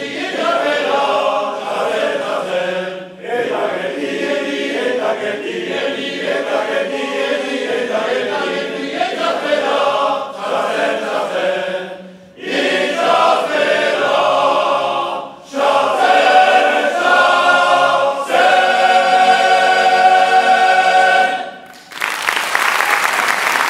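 Men's choir singing a Basque choral song a cappella, in phrases with short breaths between, ending on a long held chord. Applause breaks out just after the chord ends, near the end.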